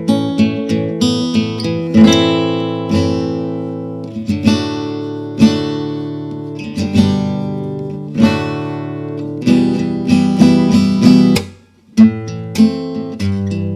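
Gypsy jazz acoustic guitars, a Selmer-Maccaferri-style oval-hole guitar with a second guitar, playing chords that are struck and left to ring about every second and a half. There is a brief break just before the end, then the playing resumes.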